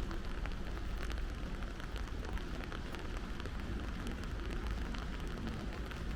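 Steady rain falling, with many separate drop taps scattered through it over a constant low rumble.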